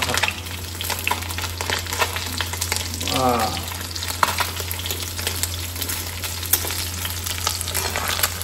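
Small fish sizzling and crackling as they fry in hot oil in a wok, stirred with a steel spoon that scrapes and clinks against the pan, over a steady low hum.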